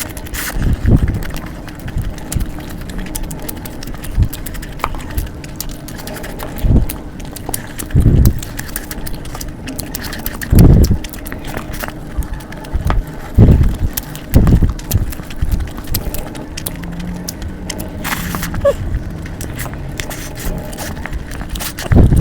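Close-miked eating sounds: chewing and mouth noises, with irregular soft thumps and scattered clicks.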